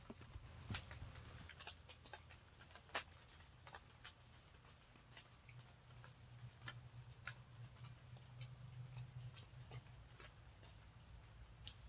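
Faint, irregular drips of fog condensation falling from the trees onto leaves, a scattered ticking with no steady rhythm, like light rain.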